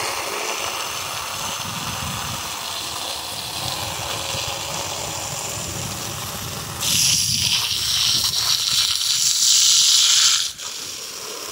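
Garden hose stream pouring and splashing into a part-filled collapsible plastic dog pool. About seven seconds in the sound turns into a louder hissing spray as the stream hits the dog, and it drops back sharply shortly before the end.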